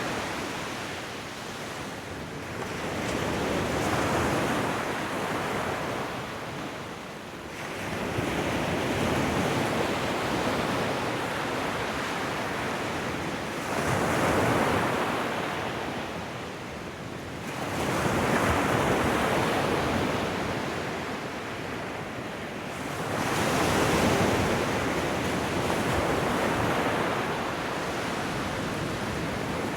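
Ocean surf: a continuous rush of waves that swells and eases back about every five seconds.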